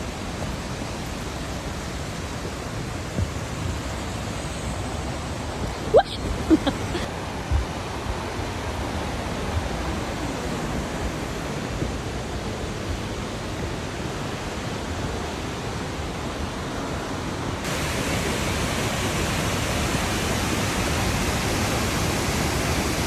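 Waterfall rushing steadily, getting louder and brighter about three-quarters of the way through. A few short, sharp chirp-like sounds come over it around six to seven seconds in.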